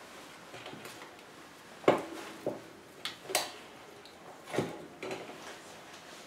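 Sharp clicks and knocks of a camera and its metal mount being handled and taken off the boom of a scissor-arm microphone stand, about six hard contacts, the loudest about two seconds in.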